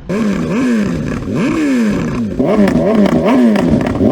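Superbike inline-four engine revved over and over, the pitch climbing quickly and sinking back about six times, with a steady rush of wind and road noise.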